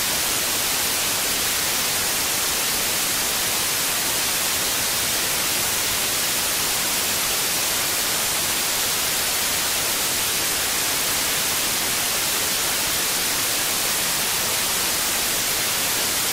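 Steady static hiss of an untuned television or radio, even and unbroken, with most of its weight in the high treble.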